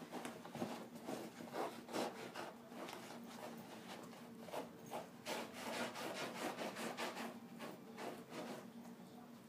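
A puggle scraping and rubbing at a blanket on carpet as it tries to bury its bone: rough rubbing strokes, a few a second, easing off near the end.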